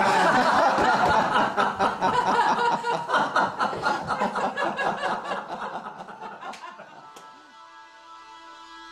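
Men laughing in rapid bursts, the laughter fading out over about six seconds; soft sustained music notes come in near the end.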